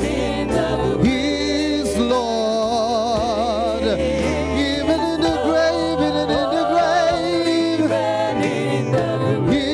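Gospel worship music: voices singing long held notes with a wide vibrato, over instrumental backing with a steady beat.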